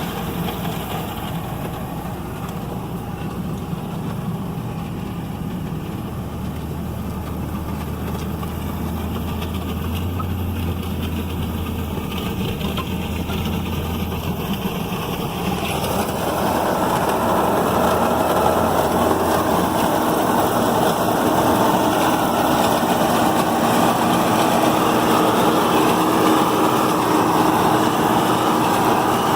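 John Deere 4440's six-cylinder diesel pulling a New Holland Roll-Belt 450 round baler with its knives in, the baler and engine running together under load. It is a steady mechanical din, normal for a baler at work, that grows louder a little past halfway.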